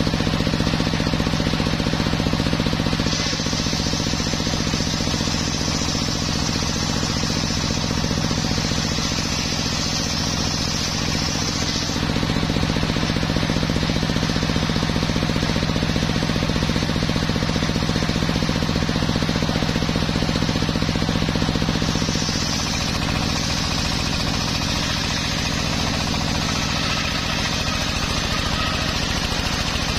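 Homemade sawmill circular saw running with a steady hum while it rips a teak beam. The blade's high hiss in the wood comes in about three seconds in and stops about twelve seconds in. It comes in again about twenty-two seconds in, when the hum drops as the saw takes the load.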